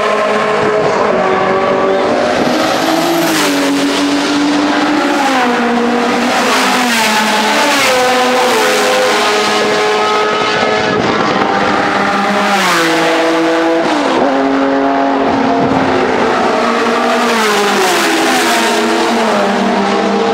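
Several touring race cars driving past one after another, their engine notes climbing and then stepping down in pitch with each gear change, often overlapping.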